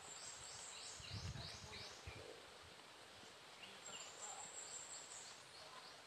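Faint song of a small bird: a thin high note followed by a quick run of about five short notes, given twice about four seconds apart. A brief low rumble about a second in.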